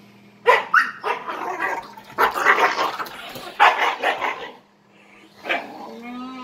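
Siberian huskies barking in short, loud bursts during rough play. Near the end one starts a drawn-out, wavering husky 'talking' call.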